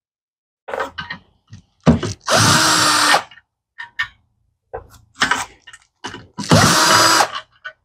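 Cordless drill backing out the fasteners of a clutch assembly: two short runs of under a second each, each spinning up to a steady whine. Short clicks and knocks between the runs as the bit is set on the next fastener.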